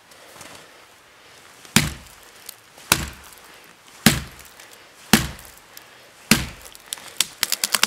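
Gränsfors Bruks Small Forest Axe chopping into the trunk of a dead standing tree, five sharp strikes about a second apart. Near the end they give way to a quick run of cracking and splintering wood.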